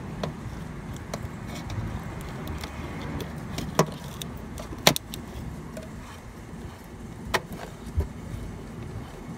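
Scattered sharp clicks and knocks from hands-on work with a wiring harness being routed through a truck's firewall, the loudest two a little before four and five seconds in, over a low steady background.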